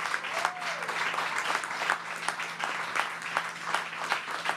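An audience applauding, many hands clapping together at an even pace.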